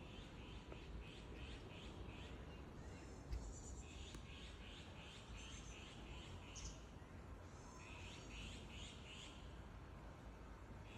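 Faint birdsong: bouts of quick repeated chirps, about three a second, with higher notes between the bouts, over a low rumble.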